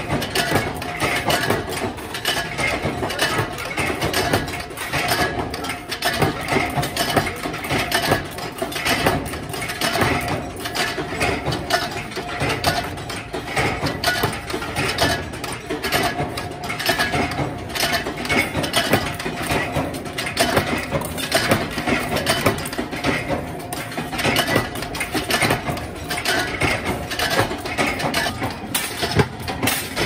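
Factory machinery running with continuous rapid clattering over a steady hum.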